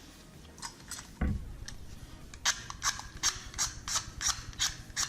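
A dull knock about a second in, then a run of sharp clicks, about three a second: small hard wax fill sticks being handled and picked through while matching a colour.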